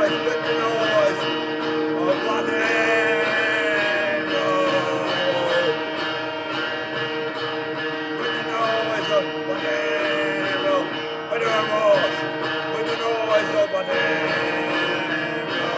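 Music: a song played with guitar, running on without a break.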